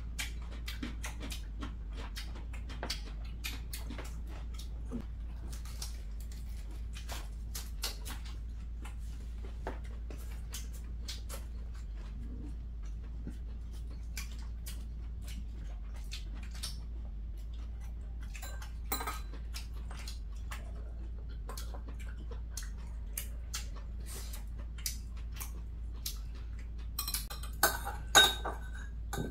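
Metal chopsticks and spoons clicking and tapping against bowls and plates at a meal: scattered light clicks, with a short run of louder clinks near the end, over a steady low hum.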